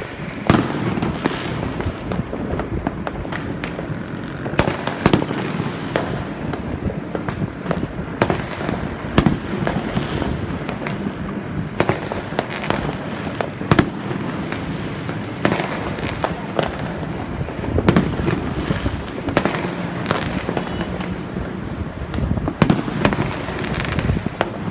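Fireworks going off continuously: many sharp bangs at irregular intervals over a constant dense crackle.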